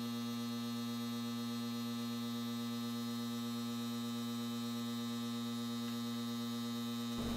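Steady electrical mains hum: a low buzz with evenly spaced overtones, unchanging in pitch and level, that cuts off abruptly near the end.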